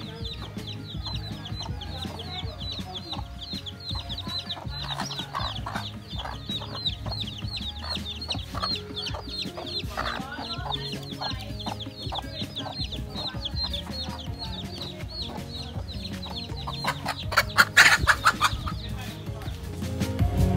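Chicks peeping continuously in quick, high, falling chirps, several a second, with a hen clucking among them. A short loud burst of noise comes about three seconds before the end.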